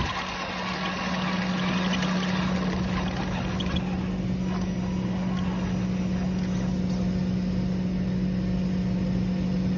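Radio-controlled pickup truck driving on pavement, heard from on board: its motor gives a steady, even hum over road noise.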